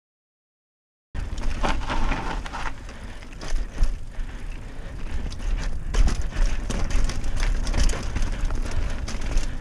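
Trek Marlin 6 mountain bike rolling fast down a dirt trail: tyres on dirt with repeated knocks and rattles from the bike over bumps, and wind rumbling on the camera's microphone. The sound cuts in after about a second of total silence.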